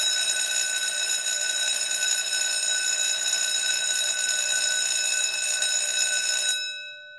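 Electric school bell ringing continuously with a metallic clatter. It cuts off about six and a half seconds in, and its tone rings on briefly as it fades.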